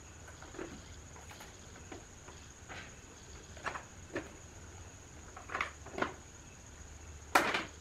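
RCA plugs being pushed onto the input jacks of an amplifier's back panel: a series of small clicks and scrapes, with a louder click near the end.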